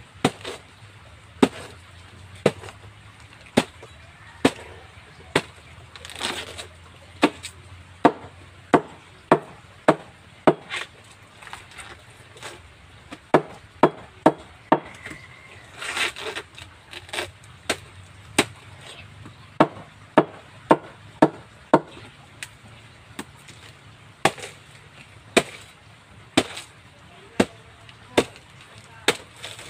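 Machete chopping through a fresh banana trunk: a long run of sharp chops, about one to two a second.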